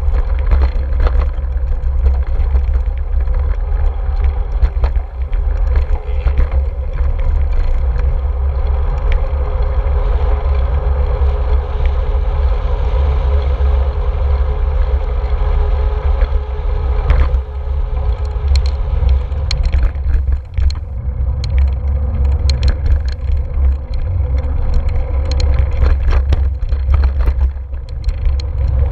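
Steady wind rumble on a GoPro's microphone as a road bike rolls along an asphalt bike path, with tyre and road noise and a few sharp clicks and rattles, mostly in the second half.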